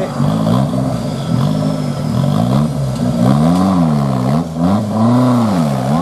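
Off-road competition 4x4's engine revving up and down under load as the truck climbs out of a deep mud hole on its winch line. Quick rev blips give way to two long swells in the second half.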